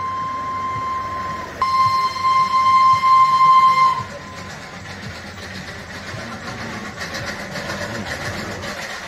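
Two long, steady high-pitched horn blasts, the first breaking off about a second and a half in and the second, louder, stopping at about four seconds. After them comes low road-traffic and engine rumble.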